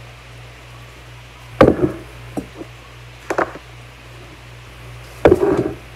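Knocks and clatter of kitchenware handled on a kitchen counter: a loud knock about one and a half seconds in, a few lighter taps over the next two seconds, and another loud clatter a little after five seconds. A steady low hum lies underneath.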